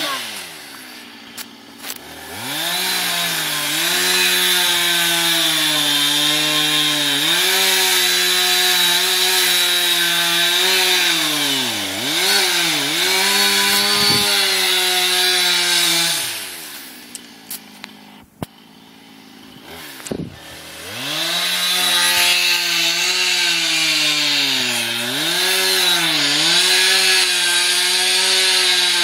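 Husqvarna 455 Rancher two-stroke chainsaw cutting into a dead oak trunk, its pitch sagging as the chain bites into the wood and rising again as it eases off. It drops back to a quiet idle twice, right at the start and again for several seconds about two thirds of the way through, then revs back up to cut.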